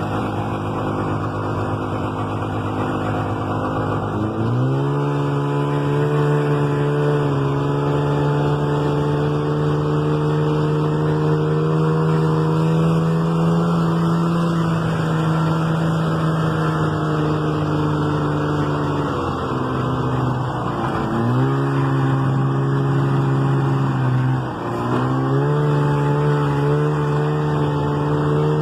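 Snowmobile engine running, its pitch rising about four seconds in and then holding steady under throttle, easing off and picking back up twice in the last third.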